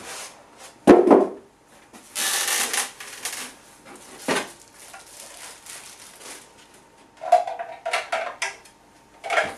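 Cardboard box and packing material being handled as plastic juicer parts are lifted out. There is a sharp knock about a second in, a burst of rustling soon after, and a run of clattering and rubbing near the end.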